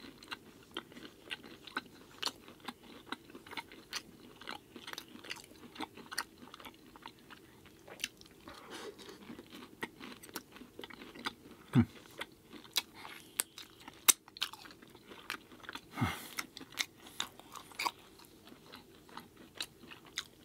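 A person chewing food close to the microphone: an irregular run of small crunches and mouth clicks, with a few sharper, louder clicks around twelve and fourteen seconds in.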